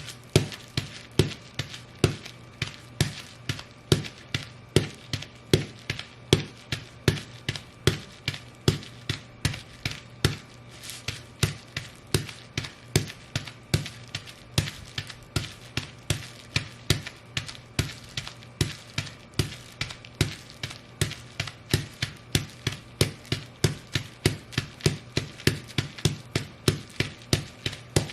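Boots stomping on bubble wrap in a steady rhythm of about two to three stomps a second, each stomp a sharp crunch as the bubbles pop.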